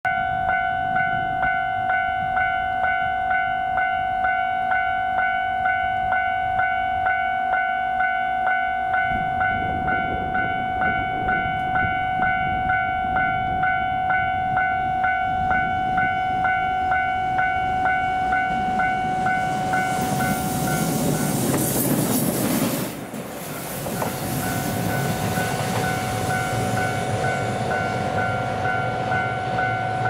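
Japanese level-crossing warning bell ringing, a steady electronic ding repeating about one and a half times a second. Train noise builds from about a third of the way in, peaks about three-quarters of the way through, drops suddenly, then rises again as the EF210 electric locomotive approaches.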